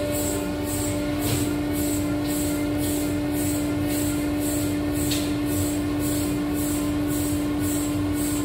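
ShopBot CNC router running steadily behind its safety wall: a constant machine hum with one steady tone, and a high hiss pulsing about two or three times a second.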